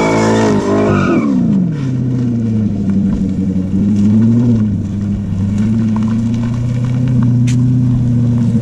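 Corvette V8 revving high, then the revs drop away about a second in and the engine settles to a low, steady run, rising briefly around four seconds in.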